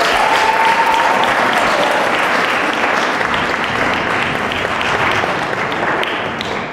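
Live audience applauding loudly, with a voice whooping through the first couple of seconds.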